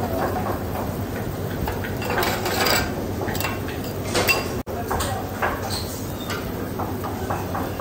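A metal spatula scrapes and clacks on a flat steel dosa griddle, spreading potato filling over a large rawa dosa, over steady kitchen background noise.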